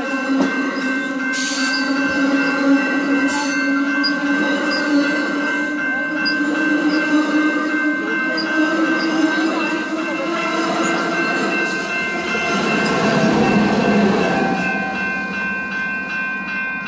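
Exo double-deck commuter train rolling past on the rails, its coaches rumbling steadily, with the locomotive at the rear going by, louder, about thirteen seconds in. A level-crossing warning bell rings over it.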